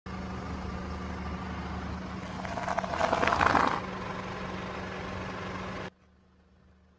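A car idles steadily while its tyre rolls over food items. A loud crackling crunch of many sharp cracks comes between about two and a half and four seconds in, as the items are crushed and burst under the tyre. The engine sound cuts off abruptly near the end.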